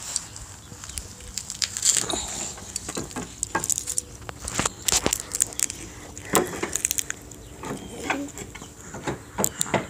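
Irregular clicks, taps and rustles close to the microphone, the handling noise of a phone jostled against a baby's skin and hands.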